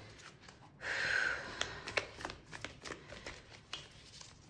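Tarot cards being shuffled and handled: a short swish about a second in, then a run of light card clicks and taps.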